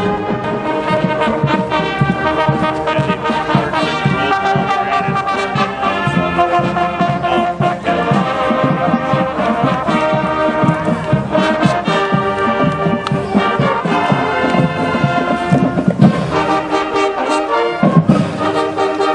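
High school marching band playing as it passes: brass instruments with drums beating under them.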